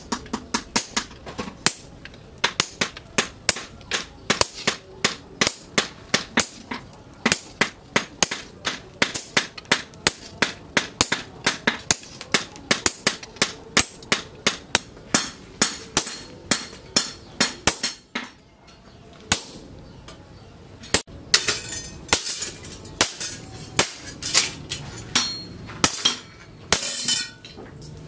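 Sledgehammer blows ringing on a red-hot machete blank on a steel post anvil: a steady run of about three to four blows a second. About two-thirds of the way through, the rhythm breaks off briefly, and then more scattered blows follow.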